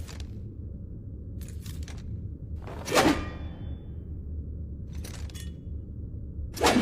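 Katana swung through the air in a series of swishes: two loud swooshes, about three seconds in and near the end, with quieter rasping strokes between them. A faint thin metallic ring hangs on briefly after the first loud swoosh, over a steady low hum.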